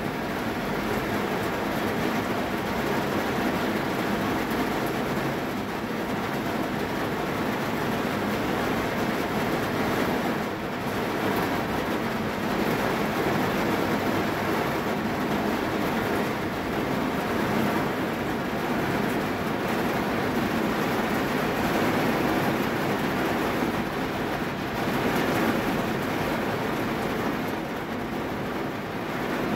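Heavy rain falling on a car's roof and windows, heard from inside the cabin: a steady, even hiss.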